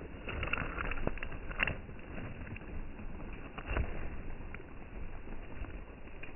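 A few light clicks and taps, such as handling a clear plastic container on gravel, over a steady background hiss.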